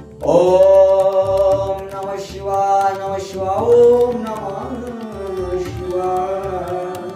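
A voice chanting a Hindu devotional hymn in long, drawn-out held notes, with the pitch sliding in the middle of the line.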